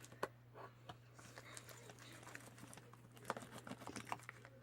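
Faint, scattered taps and clicks of objects being handled, loudest about a quarter second in and in a cluster near the end, over a steady low hum.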